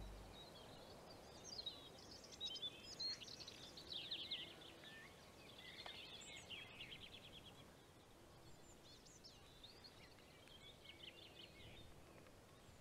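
Faint songbirds chirping and twittering in short high trills, busiest in the first half and again briefly near the end.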